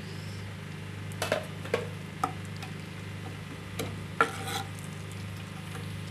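Spatula stirring nuts roasting in ghee in a non-stick kadhai: several sharp scrapes and knocks against the pan over a faint sizzle of the ghee, with a steady low hum underneath.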